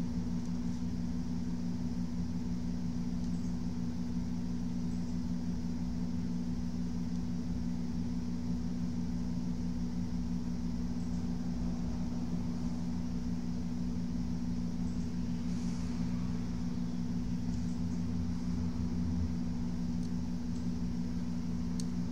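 Steady low hum of running bench equipment or a fan, even and unchanging throughout.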